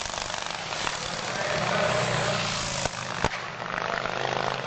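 Antique racing motorcycle engines running loudly, swelling about two seconds in. A sharp crack is heard a little after three seconds.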